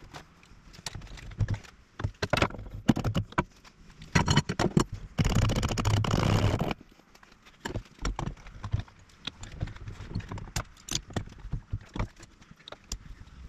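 Hand tools clinking and knocking against the engine during work near the spark plugs. Near the middle comes a loud, dense burst of noise lasting about a second and a half.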